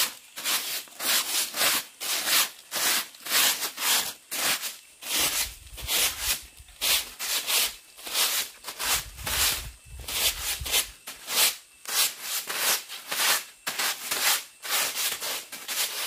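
Rough scraping or rubbing strokes repeated in a steady rhythm, about two a second.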